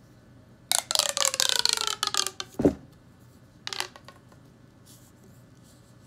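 Pink plastic pop tube fidget toy being stretched, its ribbed sections popping open in a rapid rattling run of clicks for about a second and a half, with a whistling tone that falls in pitch. A shorter burst of pops comes a second or so later.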